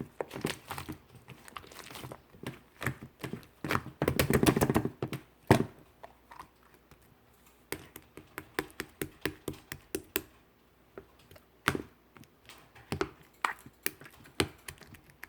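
Slime being squished and pressed by hand, making a run of irregular small clicks and pops, with a dense crackling stretch about four seconds in.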